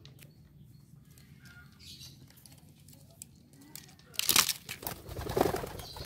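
Domestic pigeon flapping its wings in flight: a loud flurry of wingbeats starting about four seconds in and lasting under two seconds.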